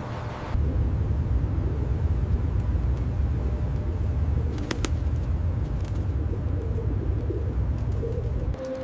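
Steady low rumble, with one sharp click about halfway through.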